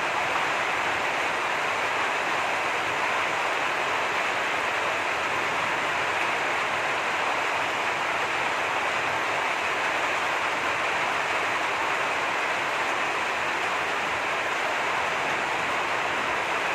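Heavy rain falling, a steady even hiss with no breaks.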